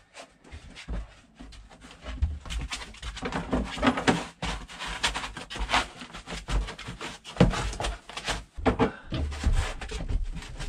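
Close clicks, knocks and rustling of hands working inside a boat's battery compartment, with low thumps, busier from about two seconds in.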